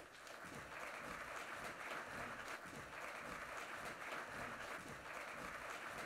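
Audience applauding steadily, fairly faint.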